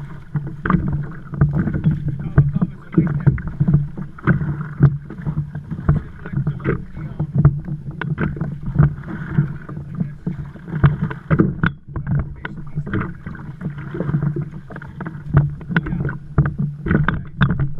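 Water slapping and splashing against the hull of a moving kayak in open-ocean chop, a dense run of irregular knocks and splashes over a steady low hum.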